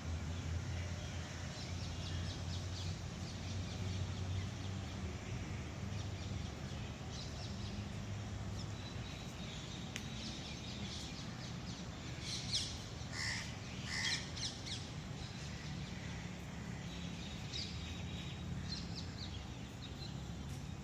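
Birds chirping with scattered short high calls, a few louder calls coming close together a little past the middle, over a steady low hum.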